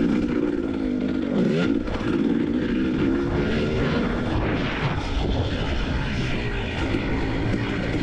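KTM EXC 300 TPI single-cylinder two-stroke dirt bike engine running under riding, its revs rising and falling, with a drop and climb about a second and a half in.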